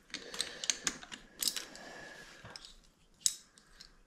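Small parts of a Honda Z50 minibike engine being worked loose by hand: a quick run of light metallic clicks and taps, then a short scraping rub, and one more click a little after three seconds.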